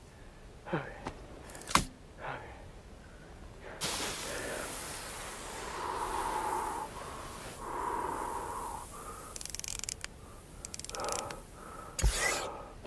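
Desert film sound effects of sand and a thumper: a few short whooshes and a sharp click, then a long sandy hiss that swells twice, then a fast rattling click as the thumper is set into the sand.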